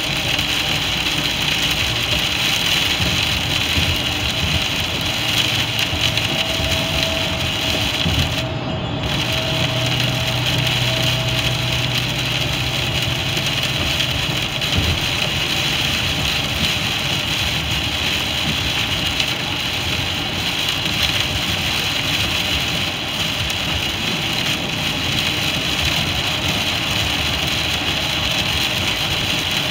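Steady road noise inside a car driving on a rain-soaked highway: tyres hissing through standing water and rain beating on the windshield and roof over a low engine rumble. The high hiss briefly drops out about nine seconds in.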